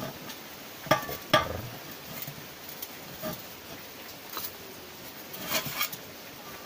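Glasswool packing being twisted and pushed by hand into the metal tube of a motorcycle exhaust silencer: a fibrous rustling and scraping, with a few sharp metallic clicks and knocks, the loudest about a second and a half in.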